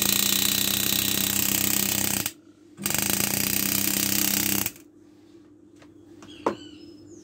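Hand-held power engraving tool cutting into a brass plate clamped in an engraver's vise: a loud steady buzz for about two seconds, a short break, then about two more seconds before it stops. A single sharp click comes about six and a half seconds in.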